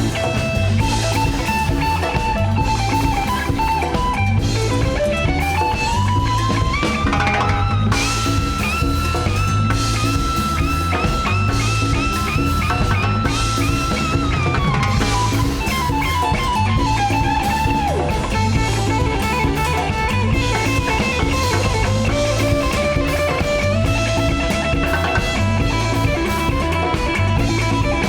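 Rock band instrumental with an electric lead guitar solo over drum kit and percussion. About five seconds in, the guitar slides up into a long held note that lasts several seconds, then comes back down into shorter phrases.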